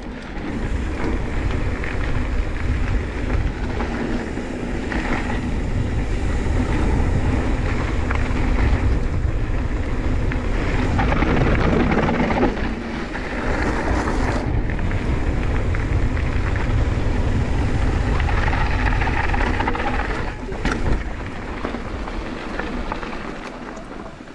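Mountain bike riding fast down a dirt and gravel trail: wind buffeting the camera's microphone over tyres rolling on gravel, with a few sharp knocks from the bike over bumps. It quietens over the last few seconds as the bike slows.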